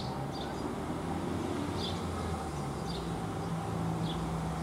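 Steady low outdoor rumble with a faint hum, and four short, high bird chirps spread through it.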